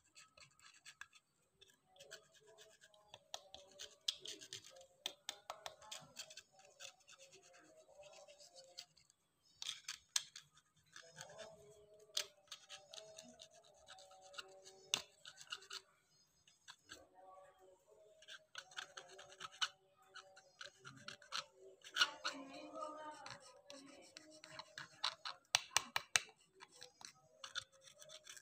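Light scratching and clicking of a squeeze bottle's plastic nozzle tip dragged and tapped over a carved knife-sheath handle as colour is worked into the relief, with soft handling rubs.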